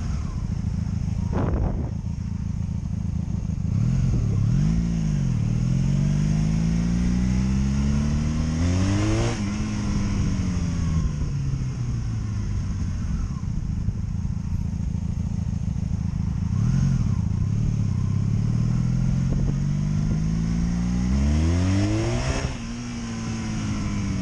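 Honda Magna VF750C's V4 engine pulling hard under acceleration while riding. Twice the revs climb steeply and then drop sharply at a gear change, once about a third of the way in and again near the end, over a steady hiss.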